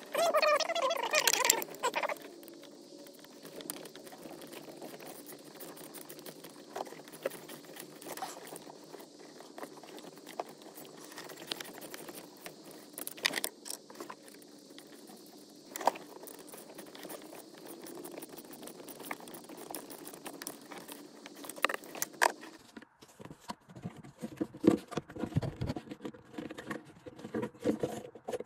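Hands working on engine parts: scattered small clicks, taps and light rattles of metal fittings and tools, with a louder jumble in the first two seconds and busier rattling in the last few seconds.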